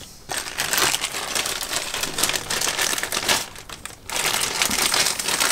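Clear plastic packaging crinkling and rustling as hands rummage through a bag of parts. It comes in two stretches, with a short pause a little before four seconds in.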